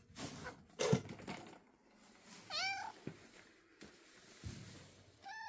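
Calico cat meowing: one short meow that rises and falls about halfway through, and another starting right at the end. Near the start there is a thump and rustling, the loudest sound, as the cat jumps down off cardboard boxes.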